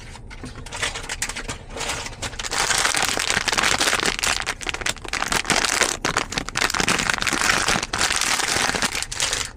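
A toy blind pack's wrapper being handled and torn open by hand: dense crinkling with many sharp crackles, getting louder about two seconds in.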